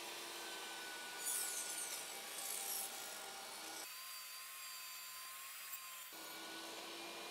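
Faint rubbing and cutting of a squared 2x4 as it is pushed along the rip fence and through the 45-degree-tilted blade of a table saw. It is a little louder and scratchier between about one and three seconds in.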